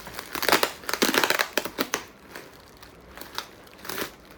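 Plastic bubble wrap crinkling and crackling as it is handled around a boxed steering wheel, densest in the first two seconds, then a few scattered crackles.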